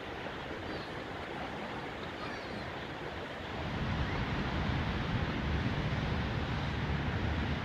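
Seashore ambience: a steady wash of sea waves. About three and a half seconds in, a low rumble joins and the whole gets louder.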